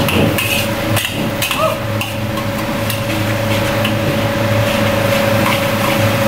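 Metal spatula clanking and scraping against a large steel wok in irregular strikes during stir-frying, over a steady mechanical hum from the kitchen.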